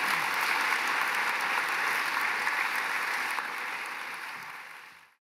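Audience applauding, a dense patter of many hands that fades from about three and a half seconds in and cuts off just after five.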